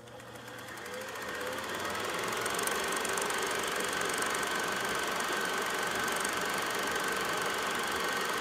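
Steady rushing noise with a faint high steady tone in it. It fades in over the first two seconds and then holds level.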